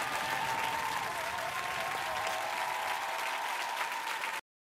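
Studio audience applauding, cutting off abruptly near the end.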